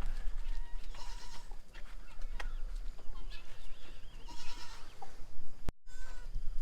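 Goats bleating in short, high calls, one about a second in and another around four and a half seconds, with fainter bleats between. The sound drops out completely for a moment near the end.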